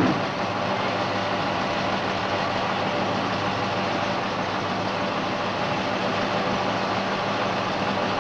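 Steady mechanical drone with a low hum and a hiss, even and unchanging throughout.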